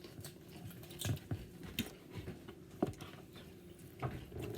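A blade cutting through a raw chicken's wing joints: irregular crunches and sharp clicks through skin, gristle and bone, about four distinct cracks spread across the moment.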